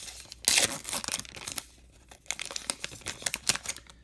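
A baseball card pack's wrapper being torn open and crinkled by hand, with the loudest rip about half a second in and irregular crackling after it.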